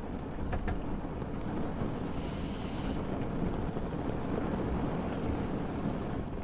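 Ambience mix of a boat on the water with wind: a steady low rumble, with a few light ticks in the first second.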